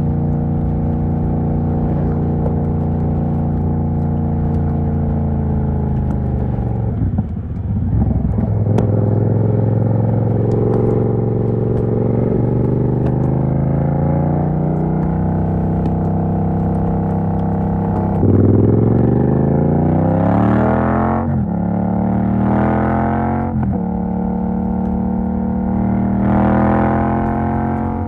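Yamaha MT-07's parallel-twin engine through an exhaust with the dB killer removed, running at steady revs, easing off about seven seconds in, then pulling hard from about eighteen seconds in with revs climbing in three quick bursts cut by upshifts.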